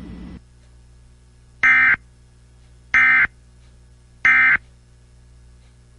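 Emergency Alert System end-of-message signal: three short bursts of digital data tone, evenly spaced about 1.3 s apart, marking the end of the warning broadcast.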